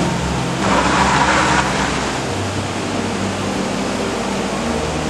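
Motor vehicle engine running steadily, its pitch shifting a couple of times, with a brief hiss about a second in.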